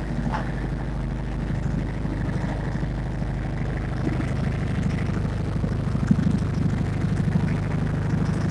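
Boat engine running steadily under way: a low, even drone that grows slightly louder and more pulsing about halfway through.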